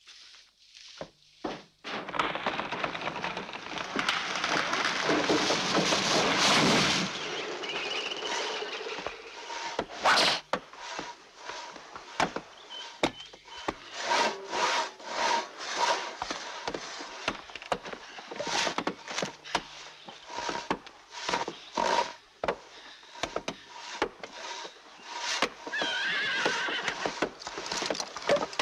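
Two-man crosscut saws rasping through logs in steady back-and-forth strokes, one or two a second. This follows several seconds of a louder continuous rushing noise. Near the end there is a wavering high-pitched call.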